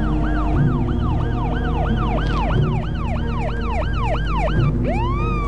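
Police car siren in fast yelp mode, its pitch rising and falling about three times a second. Near the end it changes to a slower rising wail.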